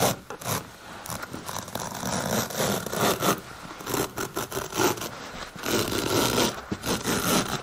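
A hand-held carpet cutting tool slicing through wool carpet with natural jute backing along a long straight edge, a scraping cut made in several pushes with short breaks between them.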